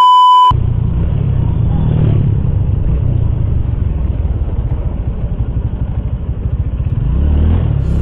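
A short electronic beep, then a motorcycle engine running on the move with a steady low rumble. The engine rises in pitch near the end as it speeds up.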